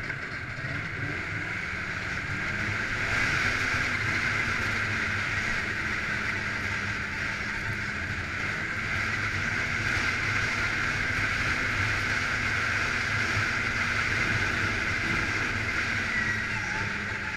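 Snowmobile engine and track running steadily under way, getting a little louder about three seconds in.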